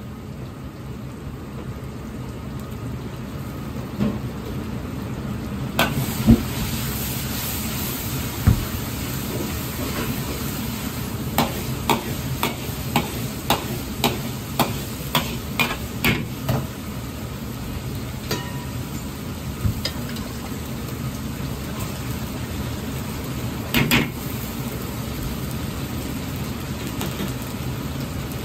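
Ground pork sizzling in a wok. A metal ladle clacks against the wok while stirring, with a run of quick strikes about two a second through the middle and a couple more near the end.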